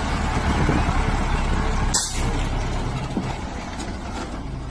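A cattle truck's engine running close by, with a sharp knock about two seconds in; the rumble eases a little toward the end.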